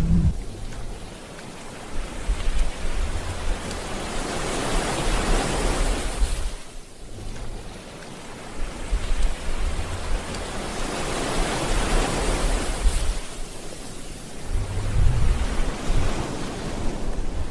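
Water sound effect: a rushing noise that swells and fades every several seconds, like surf washing in and out, with short low rumbles now and then.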